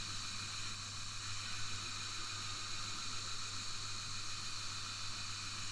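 Vortex precision belt grinder running, its abrasive belt grinding a steel knife blade flat on the platen: a steady hiss over a low, even hum.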